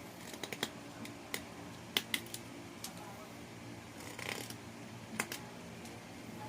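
Hand tools working wood: a series of sharp, irregular clicks and taps, with a short scraping stroke about four seconds in.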